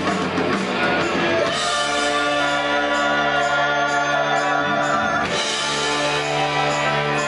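Live rock band playing, with electric guitars, drums and a singing voice; from about two seconds in the music settles into long held notes.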